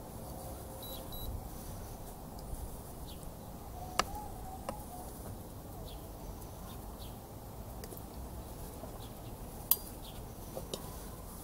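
Metal spoon stirring chicken stew in a metal pan, with light clinks of the spoon against the pan and two sharper clinks, about four seconds in and near the end.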